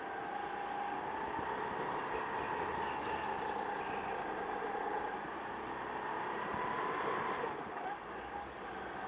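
Go-kart engine heard on board the kart, its pitch rising and falling with the throttle through the laps. The engine note drops sharply about seven and a half seconds in as the throttle is lifted.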